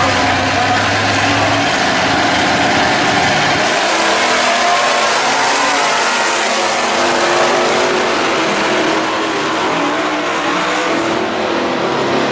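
Two drag-racing muscle cars' engines revving at the starting line, then launching at full throttle with rising engine pitch as they accelerate down the strip. The sound fades after about nine seconds as the cars pull away.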